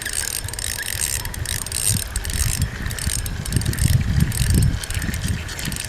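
Spinning reel being cranked, with ratcheting and clicking, while a hooked carp is played in. Wind buffets the microphone in gusts.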